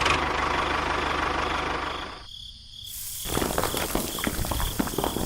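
Small engine running with a rapid rattle. It drops away briefly about two seconds in, then comes back as a clatter of quick knocks.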